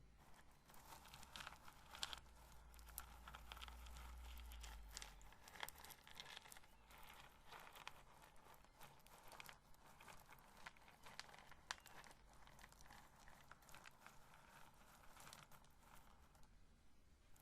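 Roasted corn kernels being rubbed and handled close to the microphone, a faint, dense run of small dry clicks and crackles. A low hum sits underneath for the first five seconds.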